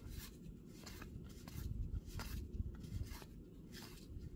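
Cardboard baseball cards being flipped through by hand, each card sliding off the stack with a soft rub, about two a second.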